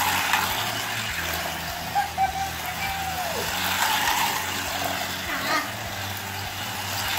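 Hot Wheels electric slot cars running around the plastic track, their small electric motors whirring steadily, with a few clicks.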